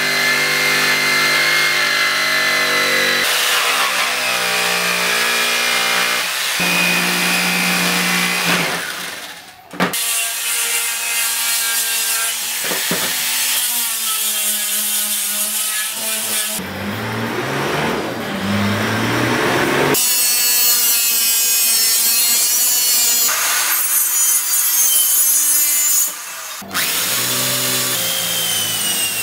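Power tools working wood in a run of short segments that change abruptly: an electric jigsaw cutting a plank, an angle grinder with a sanding disc sanding a curved wooden rocker, and an electric drill boring into the rocker near the end.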